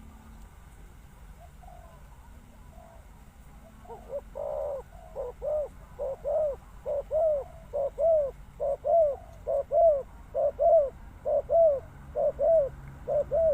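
A dove cooing: a long run of short rounded coos, mostly in pairs about a second apart, starting about four seconds in and growing louder.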